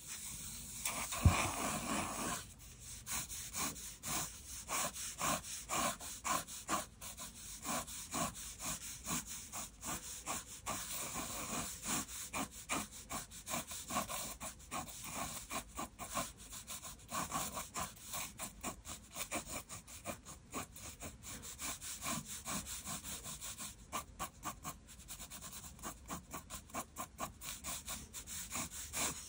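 Mechanical pencil scratching across paper in quick repeated strokes, sketching light construction lines, with one sharp knock about a second in.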